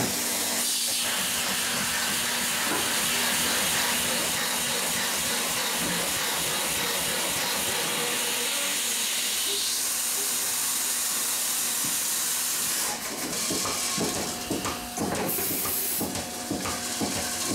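A steady, loud hissing rush of noise that after about 13 seconds turns uneven, with scattered knocks and clicks.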